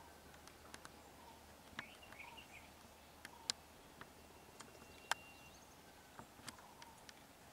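Near silence with faint outdoor ambience: a few short bird chirps and a thin steady whistle, with scattered sharp clicks throughout.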